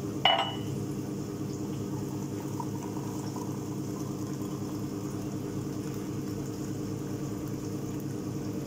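A steady low mechanical hum, with a short sharp knock about a third of a second in.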